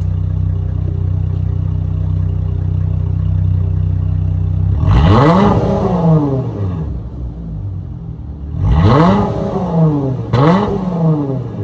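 Dodge Charger SXT's 3.6-litre V6 exhaust, fitted with a Flowmaster Super 10 muffler, idling steadily, then revved three times, the pitch rising and falling back each time. The last two revs come close together. It sounds in a concrete parking garage.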